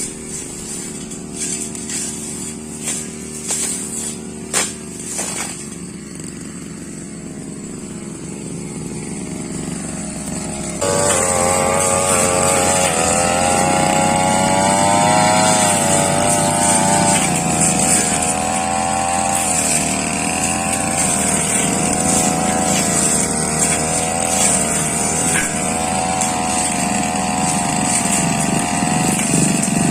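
Brush cutter engine running at low speed, with a few sharp clicks and knocks. About eleven seconds in it is throttled up suddenly and held at high revs, its pitch wavering as it works through grass and saplings.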